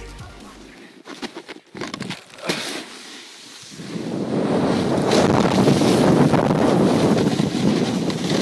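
Electronic dance music cuts off just after the start. A few scattered knocks follow, then from about four seconds in wind rushes loudly over the camera microphone as it moves over the snow.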